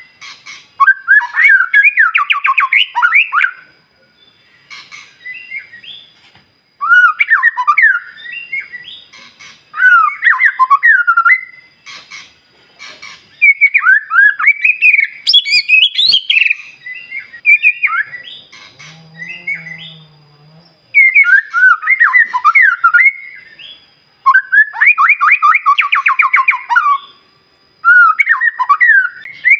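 White-rumped shama (murai batu) singing loudly in rapid, varied whistled phrases, each burst lasting one to a few seconds and broken by short pauses: the full, continuous song of a bird in top singing form, used to provoke other shamas.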